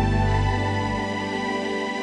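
Background music of sustained, held chords; a deep low note fades out about halfway through.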